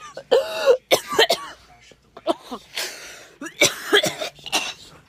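A person making loud, harsh throat sounds in several short, irregular bursts.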